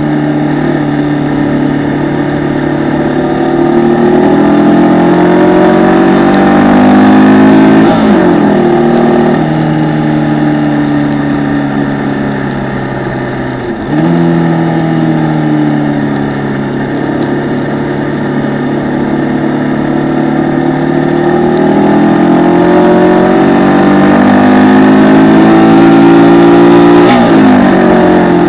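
Onboard sound of a Formula Vee's air-cooled Volkswagen flat-four racing engine, heard from the cockpit. The revs climb under full throttle to a gear change about eight seconds in, then sink for several seconds before a sudden jump up about halfway through; they climb again to another gear change near the end.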